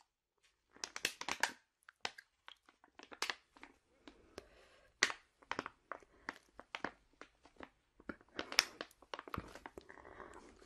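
Close-miked crinkling and crackling of something being handled, in irregular quick clicks and rustles.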